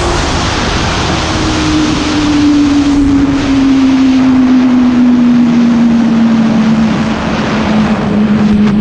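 Superbike engine running with heavy wind rush on the microphone, its note falling slowly and steadily as the revs drop.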